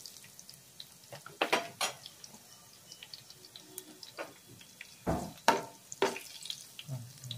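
A spatula stirring garlic, dried red chillies and mustard and cumin seeds in hot oil, knocking against the pan in a few sharp clinks, the loudest about five and a half seconds in, over faint sizzling.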